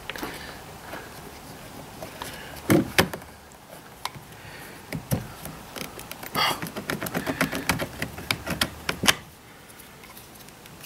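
Hard plastic clicks and knocks as a Stihl MS210 chainsaw's air filter is handled and pressed into place over the carburettor. Two sharp clicks come about three seconds in, then a run of small quick taps ends in a louder click about nine seconds in.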